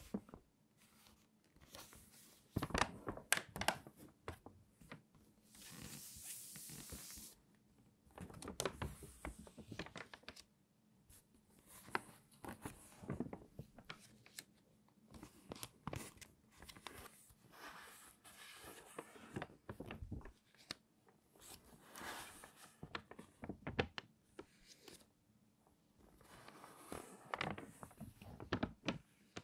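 Stiff, water-damaged magazine pages being turned and handled, crinkling and crackling in irregular bursts every second or two, with a longer sliding rustle about six seconds in.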